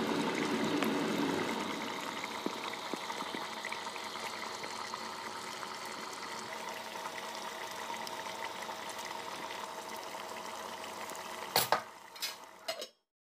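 Chicken karahi gravy simmering in a clay pot, a steady bubbling hiss that is loudest in the first second or two. A few sharp knocks near the end.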